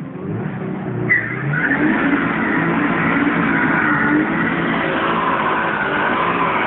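Stock WRX 2.0-litre turbocharged EJ20 flat-four revving hard during a burnout in a rear-wheel-drive Subaru Impreza GC8. The engine climbs in pitch over the first second or so, then holds high revs while the rear tyres squeal steadily.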